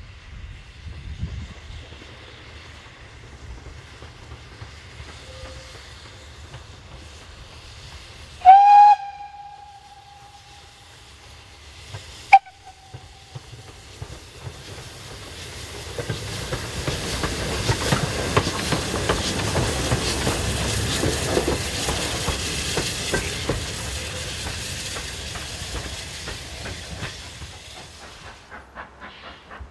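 BR Standard Class 2 steam locomotive 78019 gives one short, loud whistle blast and, a few seconds later, a brief second toot. It then passes close by working steam, the exhaust and wheels on the rail joints swelling to a peak and fading away over about ten seconds.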